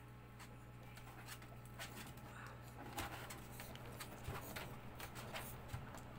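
Maltese puppy panting softly from nerves, with faint irregular clicks and rustles from handling as its ear hair is worked, over a steady low air-conditioner hum.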